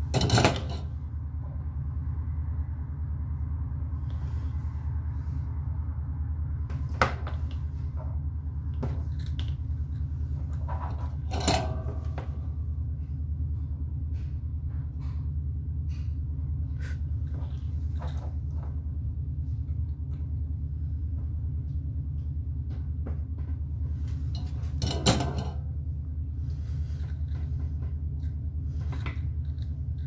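Small clicks and knocks of a soldering iron and plastic switch parts being handled on a wooden workbench, a handful of them louder, over a steady low hum.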